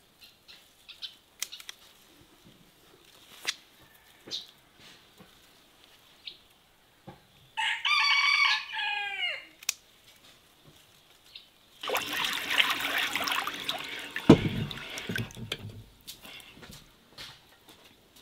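A rooster crows once, a drawn-out call of about two seconds that falls in pitch at the end, over light scattered clicks and rustles. A few seconds later comes a longer spell of loud rustling noise with a low thud in the middle of it.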